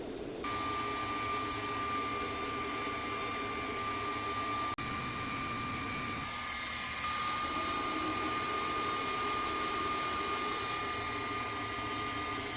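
Steady whirring of a small electric blower motor with a high, steady whine, switched on about half a second in.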